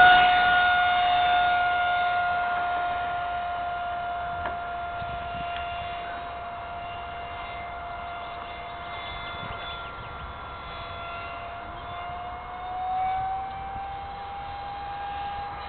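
Electric ducted fan of an RC jet (JS1400 fan unit) whining at a steady pitch as the plane flies, fading as it moves off. About thirteen seconds in the whine briefly grows louder and steps up in pitch.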